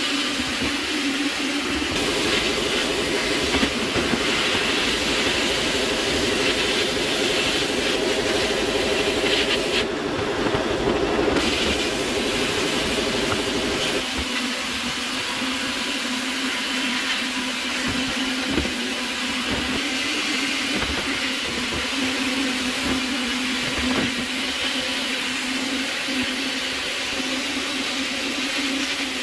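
Homemade vapour blaster in use: a brass nozzle sends a steady hissing jet of compressed air and water-abrasive slurry onto a metal part, over a constant low hum. A deeper rumble joins about two seconds in and drops away about twelve seconds later.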